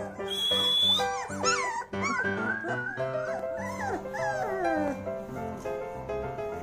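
Young Labrador retriever puppy whining, high wavering cries that rise and fall from about a second in until about five seconds in, over steady background music.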